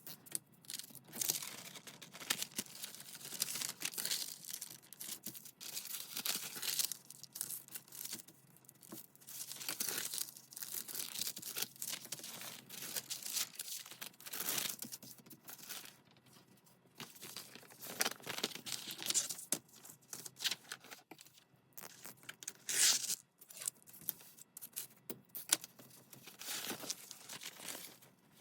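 Paper being torn and handled for collage: a run of irregular rasping tears and crinkling rustles with short pauses between, the strongest tear coming a little past three quarters of the way through.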